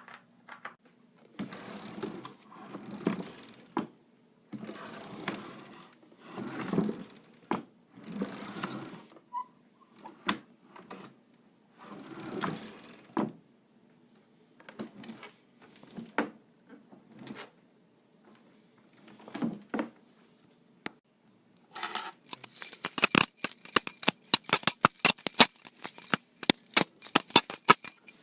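A series of short scraping or rustling strokes, roughly one a second, then, a bit over twenty seconds in, a rapid metallic jingling and clinking of small metal objects shaken together.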